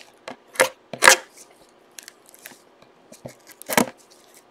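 Scrapes and sharp clicks of a sealed trading-card box being opened by hand, its plastic wrap and cardboard handled, with three louder clicks about half a second, one second and nearly four seconds in.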